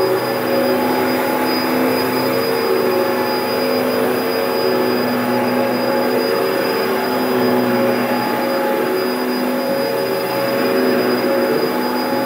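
Dyson DC01 bagless cyclone upright vacuum cleaner running steadily, its motor giving a whine with a thin high tone over a rush of air; the pitch wavers slightly partway through as it is worked over the carpet.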